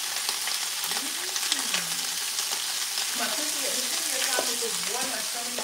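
Asparagus sizzling steadily in a hot frying pan, with scattered crackles as water on the spears spits in the fat.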